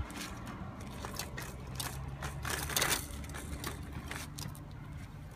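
Hard plastic wheels of a toddler's push walker rolling and scraping over a concrete sidewalk, with irregular clicks and a louder grinding scrape about two and a half seconds in. A low steady hum lies underneath.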